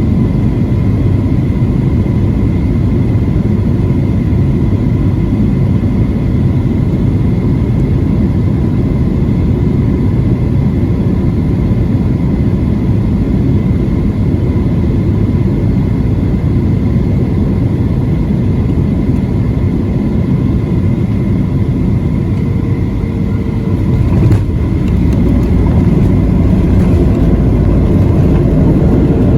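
Steady low roar of a Boeing 737-700's CFM56 jet engines and the airflow, heard from inside the passenger cabin, with a faint high whine over it. About 24 s in there is a short knock, and the roar grows a little louder from then on.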